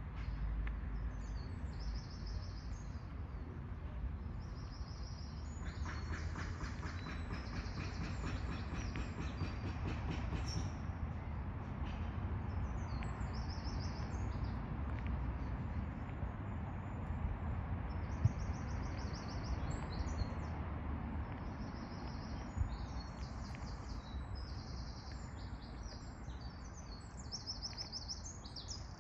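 Small birds singing in short, repeated chirping phrases, with a louder rapid trill for a few seconds about six seconds in, over a steady low rumble.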